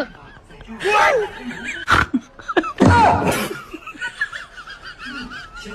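Snickering laughter in short bursts, with a sharp click about two seconds in and a high, wavering giggle near the end.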